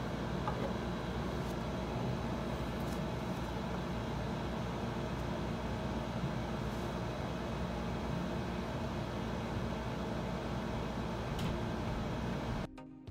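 Steady low hum and hiss of background machine noise, such as a fan or air conditioner, with a few faint clicks. It cuts off suddenly just before the end as music begins.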